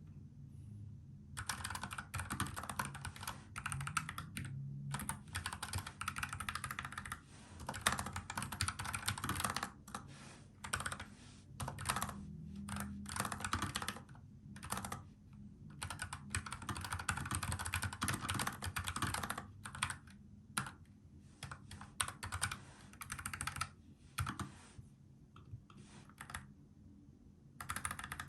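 Typing on a NuPhy Air75 low-profile mechanical keyboard with tactile brown switches: quick runs of key clacks broken by short pauses.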